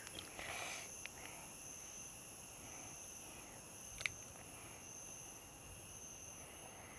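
Faint, steady, high-pitched chirring of insects in a cardamom plantation, holding at two high pitches throughout. One light metallic clink about four seconds in.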